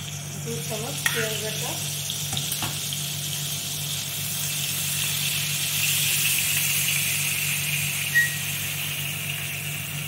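Onion paste sizzling as it fries in hot mustard oil in a nonstick pan, stirred with a wooden spatula; the sizzle swells about halfway through. A sharp knock comes about a second in and a short clink near the end.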